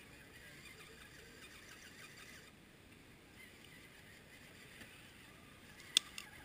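Faint whine of a scale Warn winch's small electric motor slowly hauling an RC rock crawler up a steep bank, with a sharp click about six seconds in and a smaller one just after.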